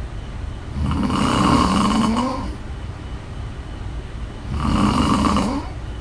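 A woman snoring in her sleep. There are two buzzy snores about three and a half seconds apart, the first longer than the second.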